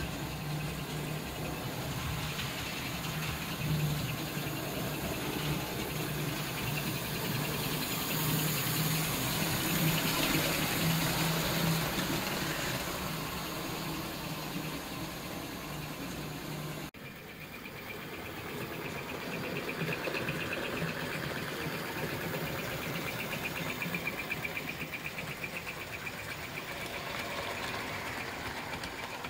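American Flyer #312 model steam locomotive running steadily on its track: a low motor hum with the whir and rattle of the wheels. The sound breaks off abruptly about seventeen seconds in and picks up again at once.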